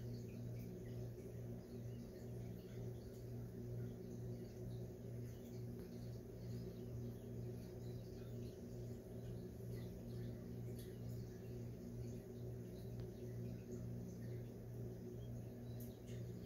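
A steady low hum, with faint, scattered chirps of small birds in the background.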